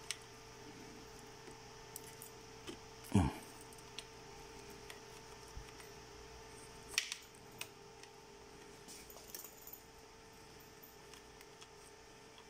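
Small clicks and handling noises of crimped wire terminals being worked onto battery-cell terminals, with a louder knock about three seconds in and a sharp click about seven seconds in, over a steady electrical hum.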